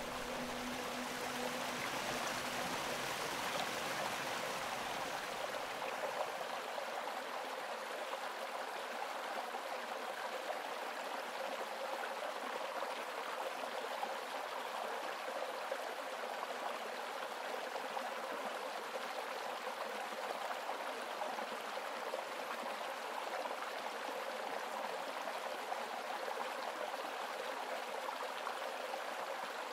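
A creek rushing steadily over rocks, a constant wash of water with no breaks. Its low rumble drops away about six seconds in.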